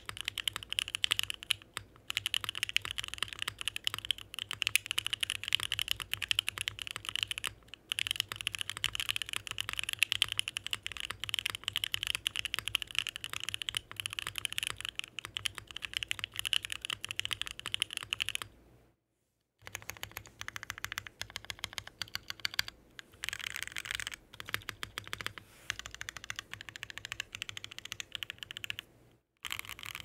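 Typing on a Bakeneko mechanical keyboard with a polycarbonate plate and OP Black switches, lubed with 205g0 and fitted with 0.15 mm switch films: a fast, unbroken run of keystrokes that stops for about a second roughly two-thirds of the way through, then carries on.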